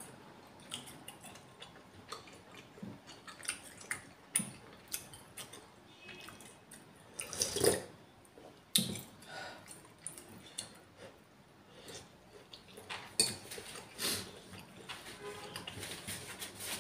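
Close-miked eating sounds: chewing and wet mouth sounds, with light clicks of a spoon against a soup bowl. There is a louder sip from the spoon about seven and a half seconds in.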